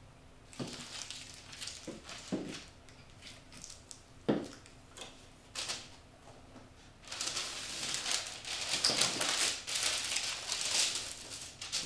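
A few light knocks and taps as small paint jars are moved and set down on a table, the sharpest about four seconds in. Then paper rustles and crinkles for several seconds as a canvas is unwrapped from its paper wrapping.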